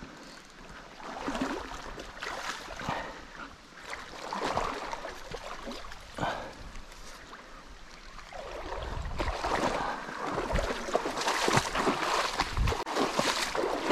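Shallow river water splashing and gurgling, in uneven spurts that grow louder and busier about two-thirds of the way through, with a few low thumps.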